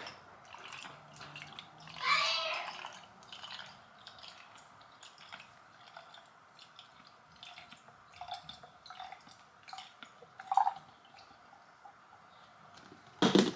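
Quiet handling sounds, scattered light clicks and taps of small objects, with a brief rustling burst about two seconds in.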